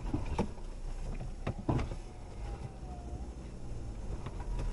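Low steady rumble of a car engine running at idle while the car creeps slowly, with a few light clicks and knocks.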